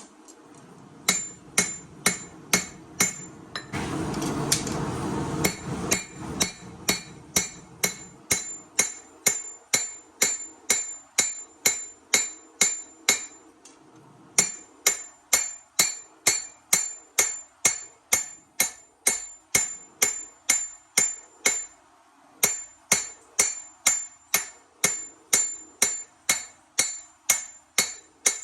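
Hammer blows on a knife blank on an anvil, about two a second, each with a bright metallic ring, in runs broken by short pauses. A loud rushing noise lasts about two seconds early on, under the strikes.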